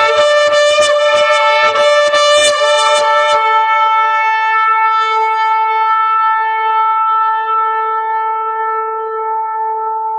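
Shofar blown: a run of rapid short broken blasts, then from about three and a half seconds in one long held note that slowly fades.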